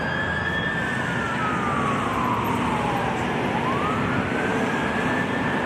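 Fire apparatus siren on a slow wail. The pitch rises to a held high note, slides slowly down over about three seconds, then climbs again about three and a half seconds in, over steady road noise.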